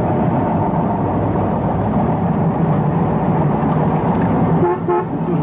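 Steady engine and road drone of a moving vehicle, heard from inside its cabin.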